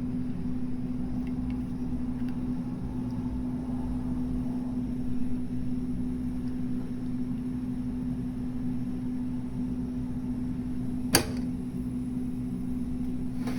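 A steady low machine hum, one even tone over a low rumble, with a single sharp click about eleven seconds in.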